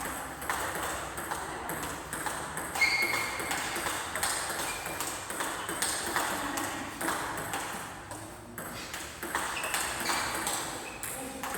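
Table tennis rally: a quick, irregular series of sharp clicks as the ball strikes the paddles and the table.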